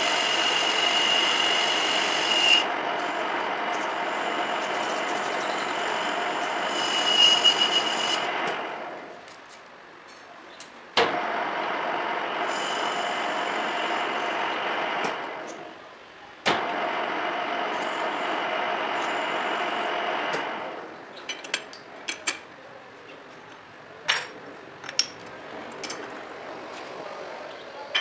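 Metal lathe running, its chuck spinning a steel shaft while a cutting tool works at a shoulder, with a high steady whine in the first few seconds. The machine runs down about 9 seconds in, and after a click it starts again; this happens twice more. It stops for good about three-quarters of the way through, leaving scattered light clinks and ticks.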